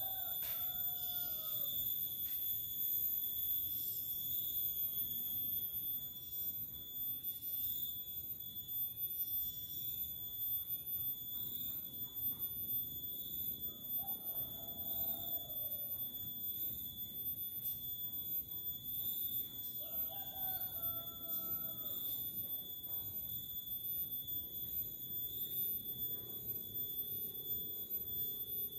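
A rooster crowing three times, once at the start, again about 14 seconds in and again about 20 seconds in, each crow about a second long. A steady high-pitched whine runs throughout.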